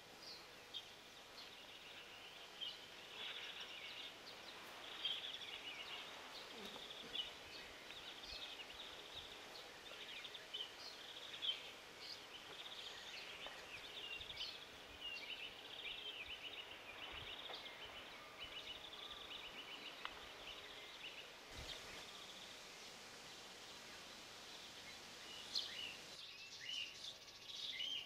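Common starling nestlings calling from a nest box: a steady run of short, high, raspy begging calls, with louder chirps near the end.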